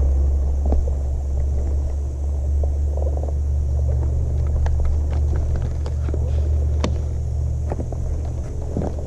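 A steady low rumble with a few scattered sharp clicks.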